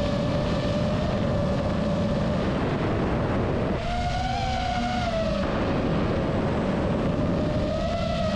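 FPV quadcopter drone's motors and propellers whining at a steady pitch over a low rushing noise. Around four seconds in, the whine briefly wavers up and down before settling back.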